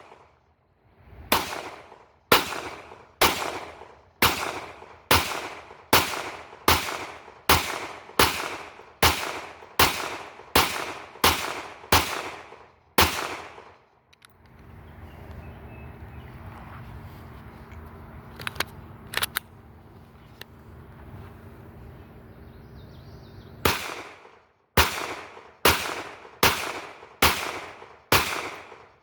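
Kel-Tec PMR-30 pistol firing Aguila 40-grain .22 WMR rounds: a steady string of single shots, roughly one every two-thirds of a second. The shots stop for about ten seconds, with two light clicks partway through the pause, then the shooting resumes.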